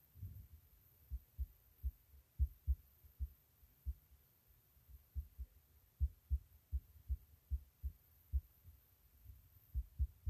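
Irregular low, dull thumps, about two or three a second with uneven gaps, with no music or voice over them.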